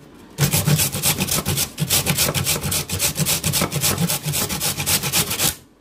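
A peeled carrot being grated on a flat steel grater: quick, rhythmic rasping scrapes, stroke after stroke. It starts after a brief pause and stops just before the end.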